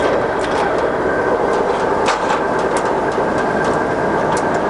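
Scott 6266 gap bed centre lathe's geared headstock running, the spindle turning at 224 rpm in its top speed range: a steady gear whine and clatter with scattered short clicks.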